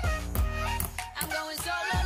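Background pop music with a heavy bass and a steady beat.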